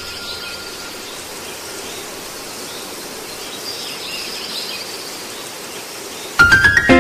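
A steady hiss-like noise bed with faint high chirping, then near the end a quick rising run of bright notes as a music track begins.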